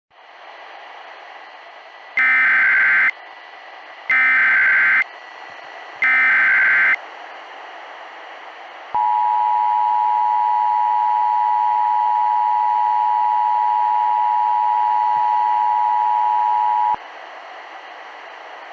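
Emergency Alert System tones over radio static. First come three short bursts of warbling SAME header data about two seconds apart, then the two-tone attention signal is held steady for about eight seconds and cuts off, announcing a new severe thunderstorm warning.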